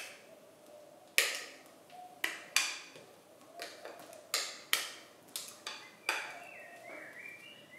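Metal spoon scraping cake batter out of a glass mixing bowl, tapping against the glass about ten times at uneven intervals, some taps leaving a brief ringing tone.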